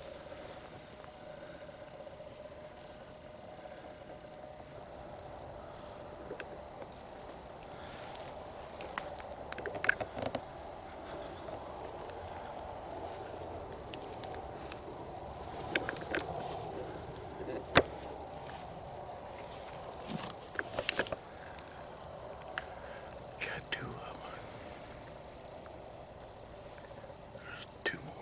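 Insects droning steadily in woodland, with scattered rustles and light clicks of handling close to the microphone and one sharp click about two-thirds of the way through.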